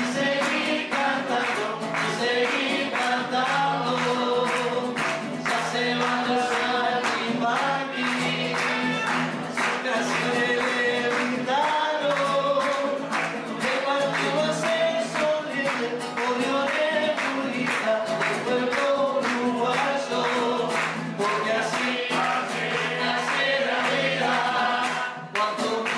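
A man singing a murga song while strumming a nylon-string classical guitar in a steady rhythm. The strumming breaks off briefly near the end.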